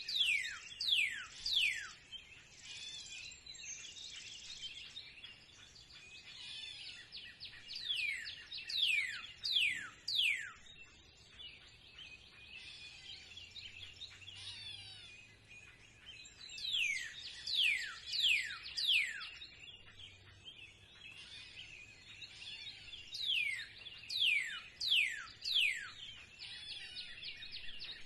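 Spring birdsong: one bird repeats a phrase of three to five loud, quickly falling whistles about every seven to eight seconds, over a steady background of other birds chirping.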